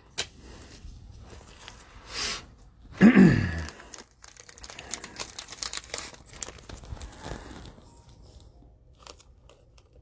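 Plastic cello trading-card pack wrapper being handled, crinkling and tearing, with a dense run of small crackles and clicks. About three seconds in there is one short low vocal sound that falls in pitch.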